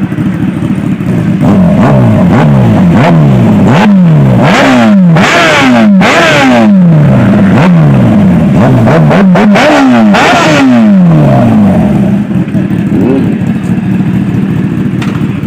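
Kawasaki Ninja ZX-10R's inline-four engine being revved while the bike stands still: a string of quick throttle blips, about one a second, each one falling back. It settles to a steady idle near the end.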